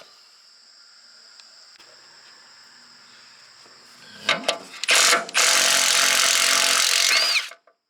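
A handheld power tool driving the bolts out: two short bursts about four to five seconds in, then a loud, steady run of about two seconds that cuts off abruptly near the end. A faint, steady high buzz runs underneath before the tool starts.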